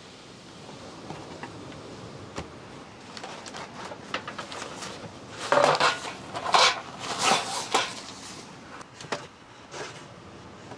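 Plastic bag crinkling loudly in a few bursts as an item is pulled out of it, about halfway through. Scattered light knocks and clicks come from wooden table parts and a metal tray being handled.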